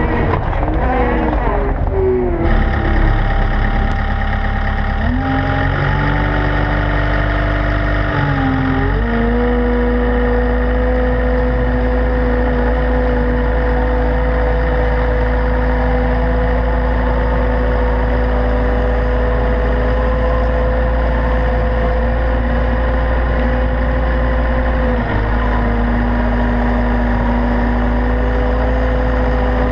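Caterpillar 299D XHP compact track loader's diesel engine running, heard up close from a camera mounted on the machine. Its droning pitch shifts several times in the first nine seconds, then holds steady.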